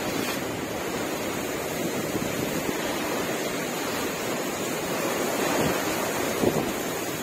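Sea water rushing and splashing past a moving boat, a steady surging wash, with wind buffeting the microphone.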